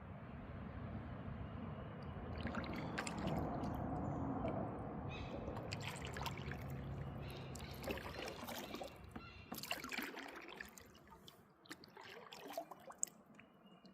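Water splashing and dripping around a kayak as it is paddled: a steady rush of water for the first few seconds, then scattered small splashes and drips that thin out in the last few seconds.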